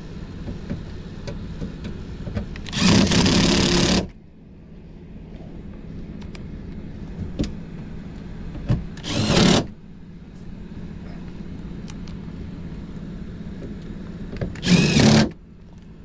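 Cordless drill/driver running in three short bursts, driving into the sheet-metal panel of an attic air handler. The first burst lasts over a second and the other two are about half a second each, over a steady low hum.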